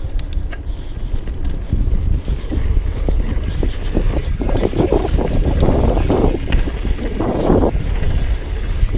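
Wind buffeting the microphone of a camera on a downhill mountain bike, over the knobby tyres rolling on a dry dirt trail, with a few sharp clicks and rattles from the bike near the start. From about halfway through, the tyre noise on the dirt becomes louder and rougher.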